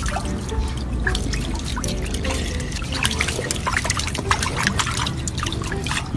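Water dripping and splashing in a rapid, uneven run of small sharp clicks.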